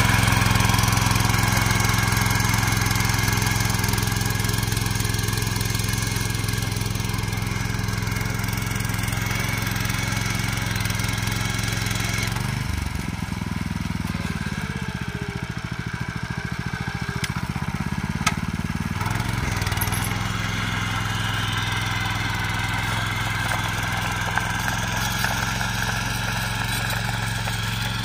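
Engine of a walk-behind mini power tiller running steadily while tilling. About halfway through its pitch sags for several seconds, then climbs back.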